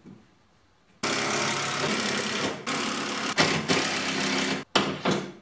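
Power drill driving a screw into plywood: the motor runs steadily for about three and a half seconds, with a brief pause partway, stops sharply, then gives one short final burst as the screw is seated.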